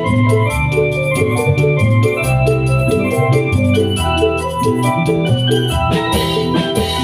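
Obrog band music from an electronic keyboard playing a fast repeating melody over a bass line. Drums and cymbals come in about six seconds in.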